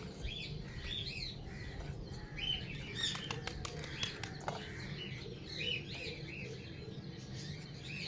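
Small birds chirping and twittering continuously, many short high calls overlapping, over a low steady hum. A few light clicks come through a few seconds in.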